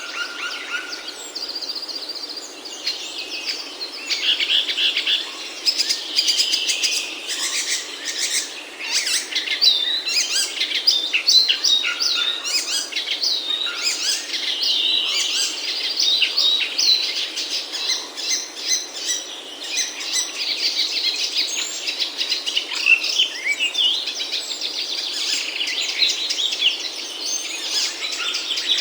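Many small birds chirping rapidly and without pause, high-pitched calls overlapping one another: nestlings begging for food.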